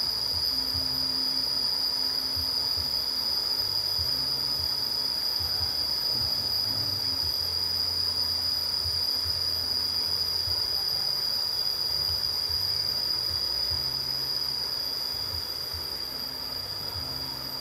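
Steady high insect chorus, one unbroken shrill tone with fainter higher lines over it, and a low hum that starts and stops underneath it.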